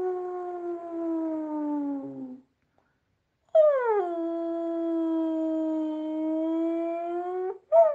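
A person imitating a dog's howl with the voice. There is a long held howl that slowly falls in pitch and fades out, a short pause, then a second howl that slides down and holds, ending in a short yelp. It mimics the howl mixed with barking of a dog left alone.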